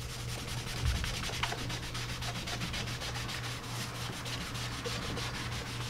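Sponge loaded with leather dye rubbed briskly back and forth over a leather piece in block dyeing: a steady scrubbing of quick, evenly repeated strokes, over a low steady hum.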